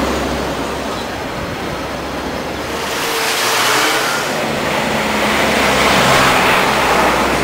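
City street traffic with motor vehicles passing close by. The noise swells about three seconds in and again from about five to seven seconds in.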